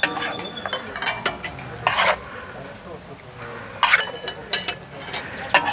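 A metal skimmer scooping and turning plov in a kazan, scraping and clinking against the pot wall a few times, over a soft sizzle from the hot rice.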